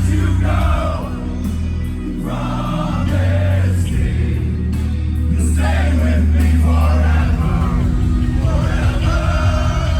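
Live metalcore band playing loud, with sung vocals over heavy sustained low notes that shift every few seconds.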